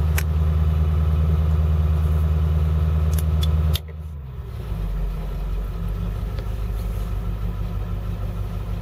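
School bus diesel engine running steadily at raised revs, then dropping back to a lower idle about four seconds in as the throttle is released. A few faint clicks come just before the drop.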